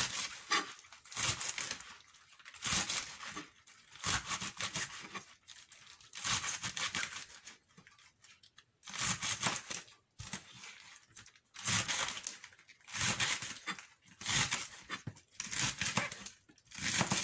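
Crisp pechay (bok choy) leaves being cut up on a board: a dozen or so noisy tearing strokes at irregular intervals of about a second.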